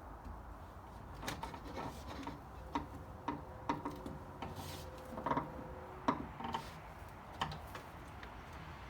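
Scattered light clicks and taps, about a dozen at irregular intervals, from hand work dismantling an old console stereo cabinet.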